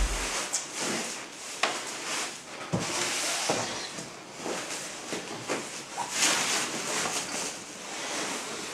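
Large plastic protective bag rustling and crinkling as it is lifted and bunched up, in swells that come and go, with a few short sharp clicks in the first half.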